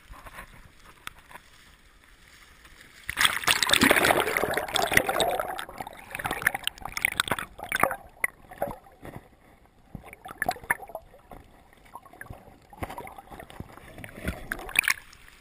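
Camera plunged into a river about three seconds in: a loud rush of splashing and bubbling water that fades over a few seconds. Then scattered muffled underwater knocks and clicks as it moves through the water, with another swell of water noise near the end.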